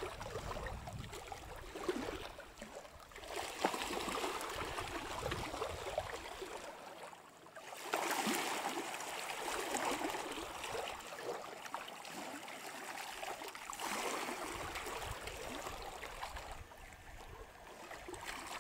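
Outdoor rushing noise of wind and water that swells and fades every few seconds, with a low rumble at times.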